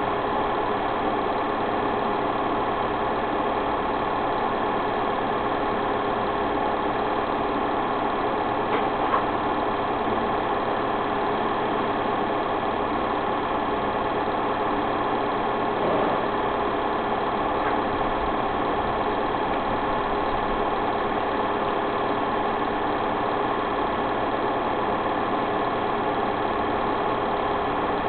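A motor running with a steady mechanical drone, with a couple of faint brief sounds about nine and sixteen seconds in.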